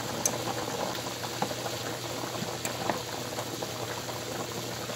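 Large pot of water at a rolling boil, bubbling steadily, with a few light clicks.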